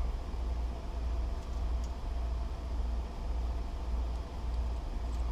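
Steady low rumble of background noise, with a few faint small clicks about a second and a half in from small metal lock parts being worked by hand.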